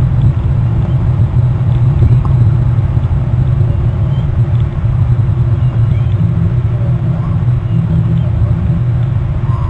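Steady low rumble, with a few faint, brief chirps above it now and then.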